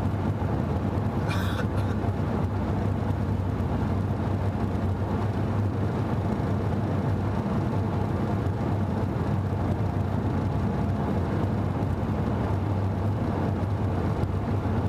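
Steady in-cabin drone of a manual Subaru cruising at road speed: low engine hum with tyre and wind noise. A brief sharp, high-pitched sound comes about a second and a half in.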